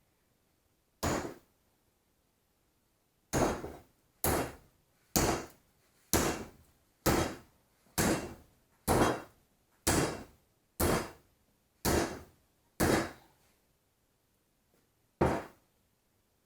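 Heavy hammer blows on a steel bench vise, struck with a 5-pound all-steel sledgehammer. There is one blow, then a steady run of about a dozen at roughly one a second, and a last blow near the end, each a sharp hit that rings off quickly.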